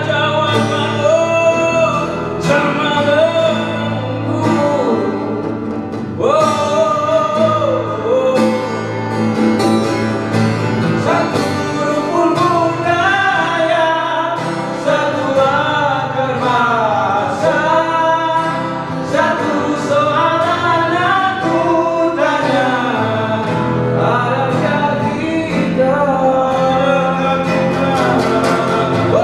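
Live acoustic folk song: two acoustic guitars strummed while a man sings, his voice rising and falling in long held phrases.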